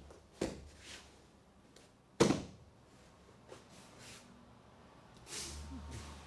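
A few sharp thuds and slaps of bodies hitting a tatami mat during a throw and pin, one small one just after the start and the loudest about two seconds in, then a softer rustle of movement near the end.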